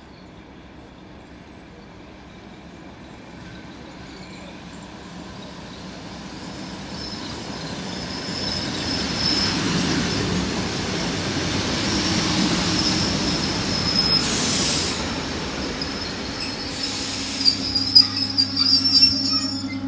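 ED9E electric multiple unit pulling into a platform. The rumble of its wheels builds as it approaches and passes, with a high steady brake squeal from about seven seconds in. Two short hisses follow, then sharp squeals and a steady low hum near the end as it slows.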